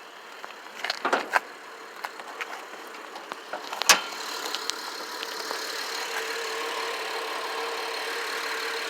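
2007 Honda Ridgeline's 3.5-litre V6 idling evenly with no knock, which the owner takes as a sign that the block is sound and a head gasket has blown. A few sharp clicks in the first four seconds, the loudest about four seconds in, after which the engine hum grows slightly louder and steadier.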